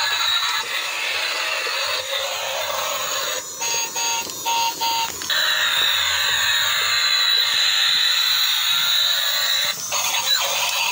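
Electronic sound effects from a yellow transforming robot-car toy's small speaker, thin with no bass. Four short beeps come about four seconds in, then a steady high electronic sound runs on until near the end.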